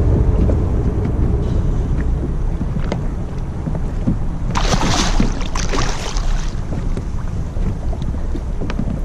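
Wind buffeting an action-camera microphone on a fishing kayak, with scattered small knocks and clicks of handling on the hull, and a louder burst of water noise lasting about two seconds about halfway through.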